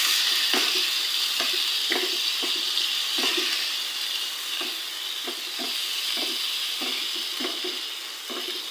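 Raw chicken pieces sizzling in hot oil with garlic and ginger in a pan, stirred with a wooden spatula that knocks and scrapes against the pan about twice a second. The sizzle gradually gets quieter.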